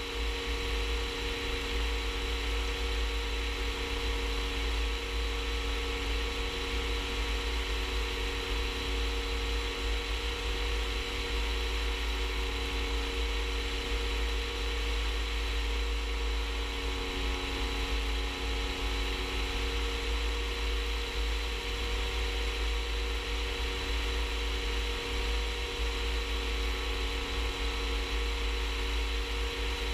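Rans S-14 light aircraft's engine and propeller droning steadily in cruise flight, with a heavy low rumble of wind on the outside-mounted microphone.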